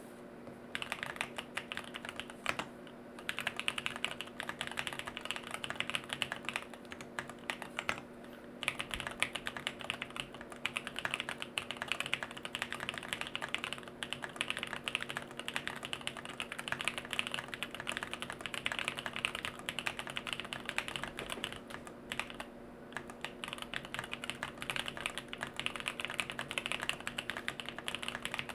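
Continuous fast typing on a jLabs JP-02 mechanical keyboard: Bolsa Supply Corsa switches on an FR4 plate with no foam, under KBDFans Neon keycaps. The typing starts about a second in and runs on as a dense stream of key clicks, with brief pauses three times.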